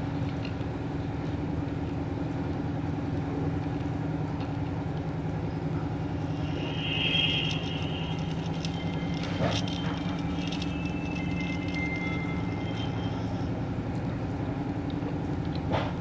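A feature phone gives a short startup sound about seven seconds in as it powers on. A few short key beeps follow as keys are pressed. A steady low motor hum runs underneath throughout.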